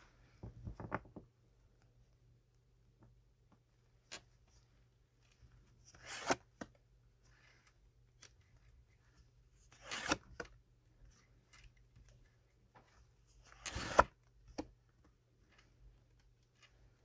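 Tarot cards being handled: short rustles and snaps of the deck being shuffled and cards drawn, in separate bursts a few seconds apart, the loudest about six, ten and fourteen seconds in.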